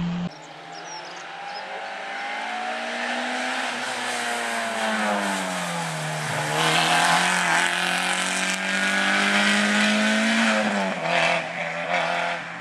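Small hatchback rally car's engine revving hard at full throttle. Its pitch climbs, falls away about four seconds in, then climbs again for several seconds before dropping sharply near the end. A rushing noise under it grows louder about halfway through.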